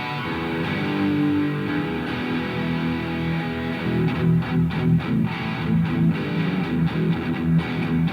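Electric guitar played through a Revv G3 high-gain distortion pedal. Held chords ring for about four seconds, then a fast, choppy rhythm of short chords follows.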